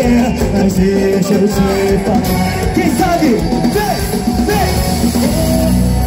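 Live band playing loud amplified dance music, with bass, guitar and a singing voice over a steady beat.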